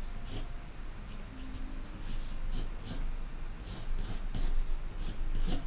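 Graphite pencil scratching on watercolour paper in a series of short drawing strokes.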